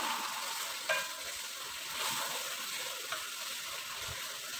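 Chilli sambal frying in a wok over a gas flame with a steady sizzle while a wooden spatula stirs it, with a sharp click of the spatula against the pan about a second in and a lighter one about three seconds in.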